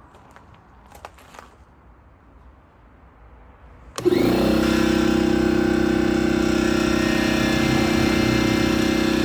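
MCGRAW 21-gallon oil-free vertical air compressor switched on about four seconds in, its electric motor and pump starting at once and running with a steady, even drone. A few faint clicks come before it starts.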